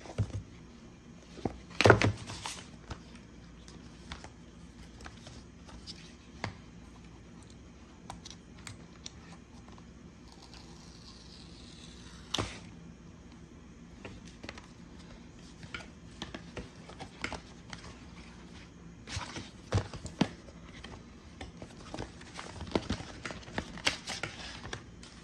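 Cardboard and paper packaging being handled as a watch box is opened: scattered taps, scrapes and rustles as the box, paper flaps and band card are slid and lifted. The loudest knocks come about two seconds in and again around twelve seconds, with a busier run of taps and rustles near the end.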